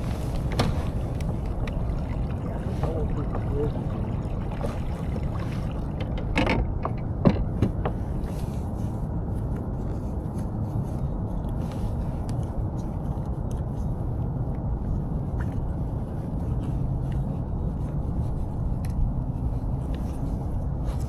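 Kayak underway on the lake: a steady low rumbling noise of the hull moving through the water, with a couple of sharp knocks about six and seven seconds in.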